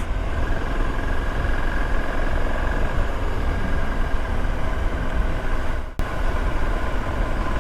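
Motorcycle engine running steadily at cruise, with low wind rumble on the helmet camera's microphone. The sound drops out for an instant about six seconds in.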